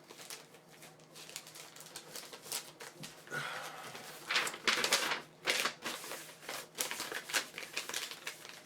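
Irregular crinkling and rustling of trading card packaging and cards being handled, with a denser, louder patch of crackling about halfway through.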